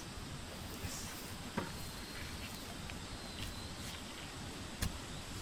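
Steady outdoor background hiss with two sharp knocks, about a second and a half in and again near the end, the second louder.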